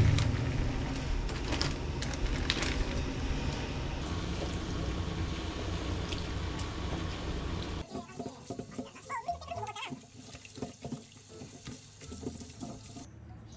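Pan of water at a rolling boil as naengmyeon noodles go in and are stirred with metal tongs. About eight seconds in it cuts to a kitchen tap running into a stainless steel sink while the noodles are rubbed and rinsed in a strainer under cold water, with small splashes.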